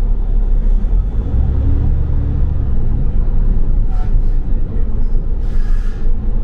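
Double-decker bus engine running with a steady low rumble, heard from on board, with a short hiss about four seconds in and a longer hiss near the end.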